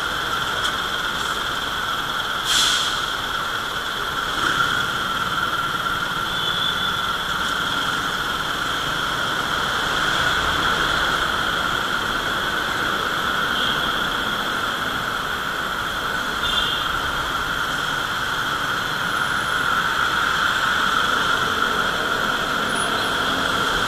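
Motorcycle riding through slow traffic: steady engine and road noise with a constant high whine, and a short knock about two and a half seconds in.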